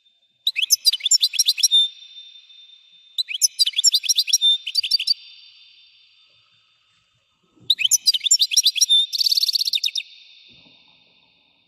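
A European goldfinch singing: three bursts of rapid, high twittering notes, the last ending in a fast buzzy trill, each burst trailing off slowly.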